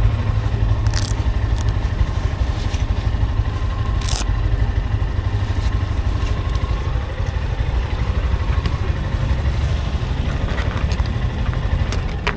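Honda NX190's single-cylinder engine running under a steady haze of road and wind noise, with two short sharp clicks about a second and about four seconds in.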